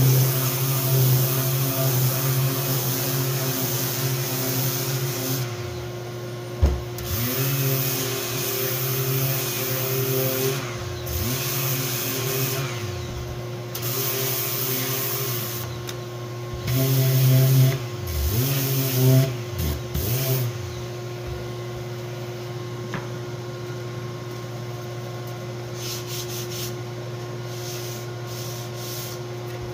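Random orbital sander with 150-grit paper running on a wooden panel, hooked to a dust-extractor hose. Its motor pitch dips and recovers several times as it is worked. About two-thirds of the way through, the sander stops and a quieter steady drone of the dust extractor carries on.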